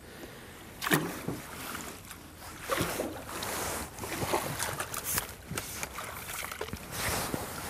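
Water splashing as a hooked trout thrashes at the surface and is scooped into a landing net: a run of irregular splashes, the loudest about a second in.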